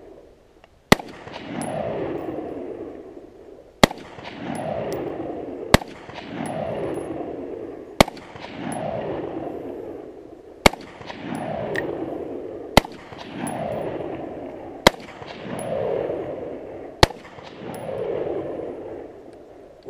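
Gas-piston Sig Sauer 516 Patrol rifle firing 5.56 rounds one at a time: eight shots about two seconds apart, each followed by a long echo rolling back and fading.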